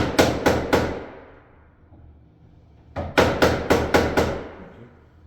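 Hammer striking a wood chisel to cut a deadbolt mortise into a hardwood door: a quick run of about five sharp blows, a pause of about two seconds, then another run of about six.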